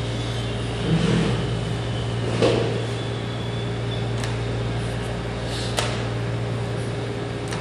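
A chess piece set down on the board, then a few sharp clicks of the digital chess clock's buttons being pressed, over a steady low hum.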